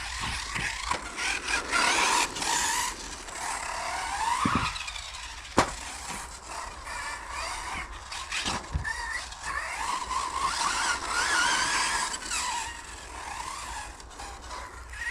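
Hobao Hyper 10 TT 2.0 RC car's brushless motor (Supersonic V2 3660, 4250 kV, on 2S) whining, its pitch rising and falling as the car accelerates and slows, over tyre hiss on carpet. A sharp knock about five and a half seconds in.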